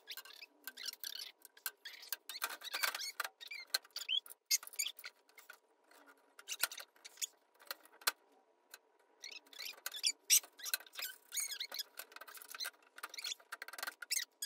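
Glass shelf panes squeaking and clicking as they are pushed and slid into a glass cabinet's frame: a busy string of short, high-pitched squeaks and sharp clicks.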